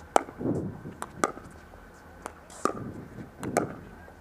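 Pickleball paddles striking a plastic pickleball in a short rally: a series of about seven sharp, hollow pocks, irregularly spaced half a second to a second apart.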